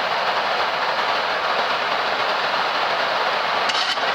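Steady rush of airflow and engine noise on a Boeing 737 MAX flight deck in the initial climb after takeoff, with a few faint clicks near the end.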